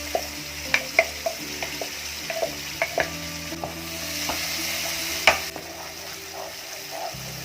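Food sizzling as it fries in a pan while being stirred, with a steady hiss and sharp clicks of the spatula striking the pan. The loudest click comes a little past five seconds in.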